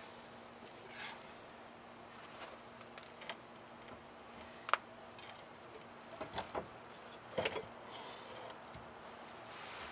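Scattered clicks and knocks of hand tools on metal under a Datsun B210 as the differential is being unbolted, with one sharp click about halfway through and a quick cluster of knocks in the second half.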